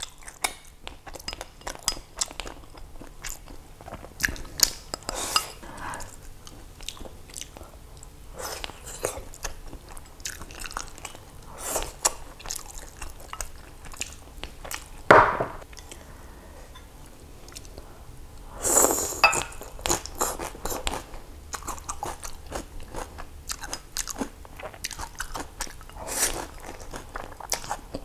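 Close-miked chewing and mouth noises of a person eating mouthfuls of rice with braised fish, many small wet clicks and smacks, with two louder ones a little past halfway and about two-thirds of the way through.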